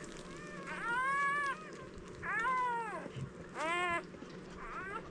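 Newborn Labrador retriever puppies crying: three loud, high, rising-and-falling squeals, with fainter ones in between.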